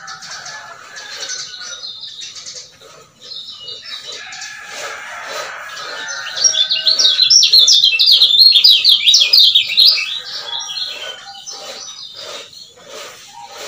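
Male kecial kuning white-eye singing a fast, chattering 'ciak ciak' song of rapid high notes, loudest in a dense run from about six to ten seconds in.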